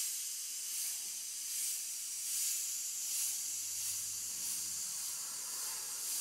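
An Iwata Eclipse airbrush running on compressed air hisses steadily. The hiss swells in short spurts a little under a second apart as it sprays small dots of opaque white paint.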